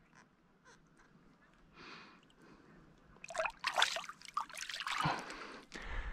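Shallow lake water splashing and sloshing around hands as a largemouth bass is released, in a few irregular splashes starting about three seconds in, with a low rumble near the end.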